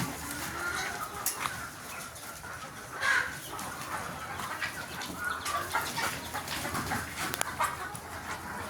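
A flock of Sonali desi chickens clucking, with many short calls overlapping and a louder call about three seconds in.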